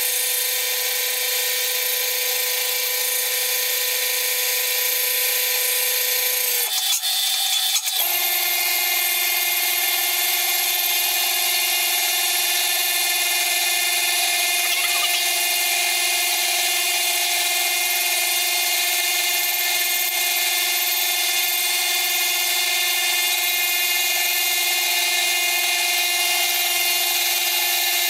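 Horizontal milling machine taking a cut through a strip of bronze with an arbor-mounted disc cutter: a steady machine whine over a hiss of cutting. After a brief break about seven seconds in, it carries on at a lower pitch.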